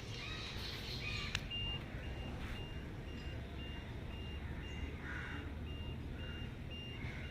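An electronic beeper sounding a steady high-pitched beep about twice a second, over a low steady hum, with a sharp click about a second in.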